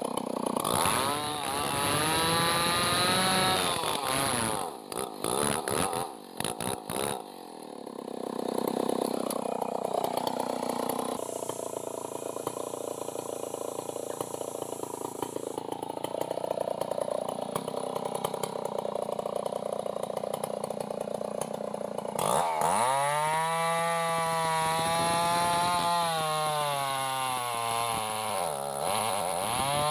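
Stihl two-stroke chainsaw trimming timber logs, revving hard with the engine note rising and falling as the chain bites. The saw drops out in short choppy breaks a few seconds in, runs steadier and lower through the middle, then revs up high again about three-quarters of the way through.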